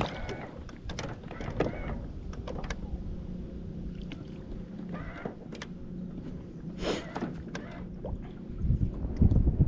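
Small fishing boat on the water: a faint steady low hum with scattered light knocks and clicks, then wind buffeting the microphone near the end.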